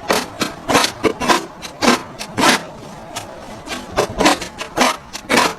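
A series of short scraping or rasping strokes, irregular, about two a second.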